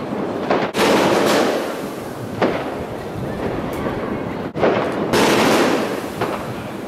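Street fireworks going off: dense crackling mixed with sharp bangs. Louder bursts start about a second in, at about two and a half seconds, and again around five seconds in.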